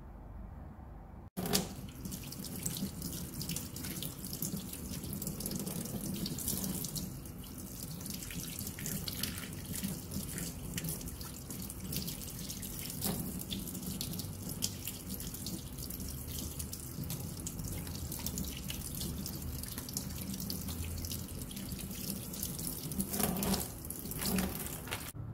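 Tap water running into a stainless steel sink, splashing as raw chicken pieces are rinsed by hand under the stream. It starts suddenly about a second in.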